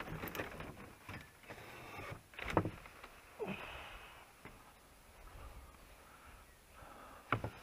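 Folding tables being handled and set up: a run of knocks, scrapes and short squeaks as the legs and tops are moved, with a sharp knock about two and a half seconds in and another near the end.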